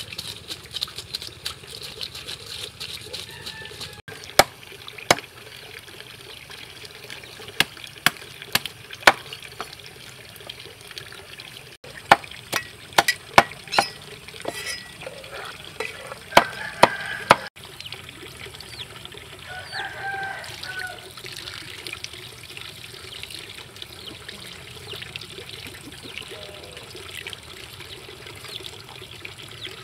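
Cleaver chopping a large fish on a wooden chopping block: sharp knocks, a few single ones, then quick runs of four or five, through the middle of the stretch. Under them is a steady trickle of running water.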